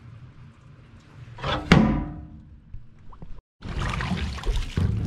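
A sudden metallic thunk about a second and a half in, ringing briefly. After a short break, a hooked fish thrashes and splashes at the water's surface beside the boat's hull.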